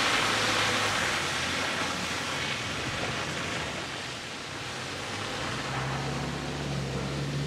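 Toyota Land Cruiser Prado SUV crawling through mud on an off-road course: a low engine drone under a steady hiss of tyres churning and spraying mud. The engine note grows stronger about six seconds in.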